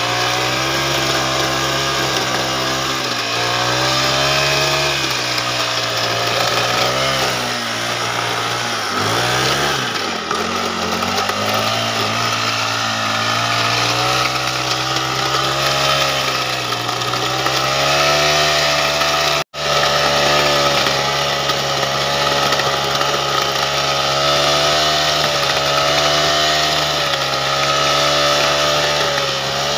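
Small petrol engine of a wheeled mini tiller running at high revs while its rotating tine head churns weeds and soil. The engine note wavers with the load, sagging and picking up again about nine seconds in, and the sound drops out for an instant about two-thirds of the way through.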